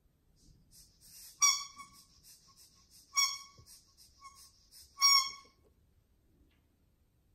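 A squeaky toy ball is squeezed three times at even intervals, each giving a short, high squeak.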